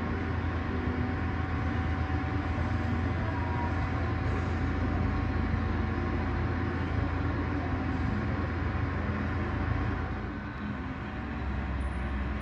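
Steady low rumble of airport ramp machinery around a parked airliner at the gate, with a faint constant whine over it. It eases a little about ten seconds in, then comes back up.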